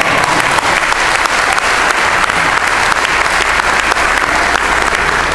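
A congregation applauding, many hands clapping in a dense, steady, loud patter.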